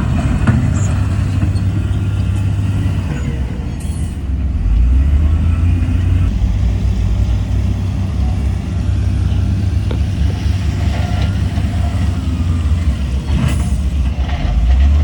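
Heavy diesel engine of earthmoving equipment running with a deep, steady rumble, growing a little louder about five seconds in. Two short hisses, one about four seconds in and one near the end.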